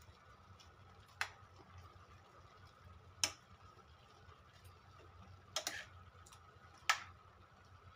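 Metal spoon clinking against a stainless steel pot while stirring chopped cabbage and carrots: four sharp clinks a second or two apart, the third one doubled, over a faint steady hum.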